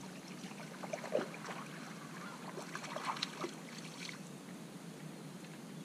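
A small schoolie bass splashing at the water's surface as it is reeled in to the side of a small boat, with a scatter of short splashes and clicks between about one and four seconds in.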